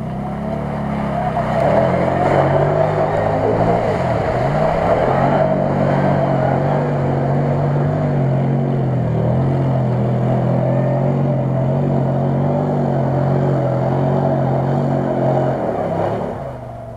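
Off-road vehicle engine revving up in the first couple of seconds and then held at high, steady revs while driving through deep mud and water, easing off near the end.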